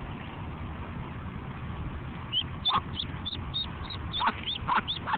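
Muscovy ducklings peeping: a quick run of short, high cheeps, each dropping in pitch, starting about two seconds in over a steady low rumble.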